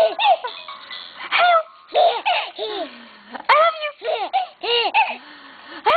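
A baby laughing in a string of short, high-pitched giggles, each rising and falling in pitch, with brief pauses between them.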